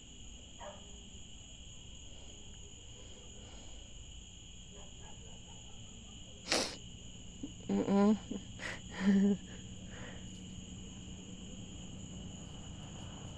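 Crickets chirping steadily in a continuous night chorus. Past the middle comes a brief sharp noise, then a few short voice-like sounds, which are the loudest thing here.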